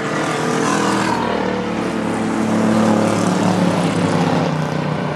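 Engines of short-track stock cars racing around an oval, a steady layered drone of several motors that gets a little louder from about halfway through as the cars come by.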